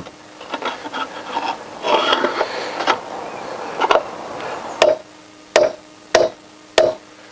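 A steel drift scrapes and rubs against the inside of a motorcycle wheel hub. Then a hammer strikes the drift four times in quick succession, each blow with a short metallic ring. The drift is tapping at the rear wheel's bearing spacer tube, which is stuck tight because the bearings are compressed on it.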